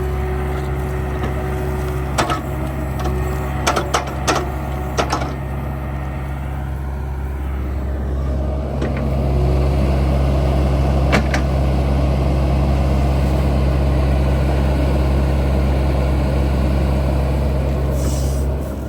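Heavy machinery engine running steadily at close range, with a cluster of sharp metallic clanks a few seconds in and two more single knocks later. The engine note grows a little louder about halfway through.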